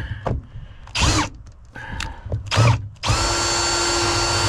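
Power drill driving a socket on an 11 mm nut: a couple of short bursts, then a steady run at constant speed starting about three seconds in, trying to undo a camper lift-mechanism bolt that is not coming off.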